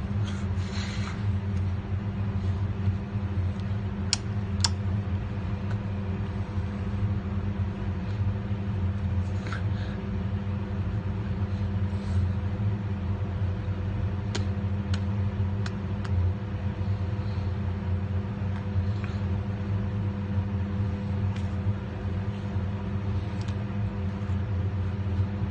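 A vehicle engine running steadily with a low hum, with a few light clicks and knocks over it.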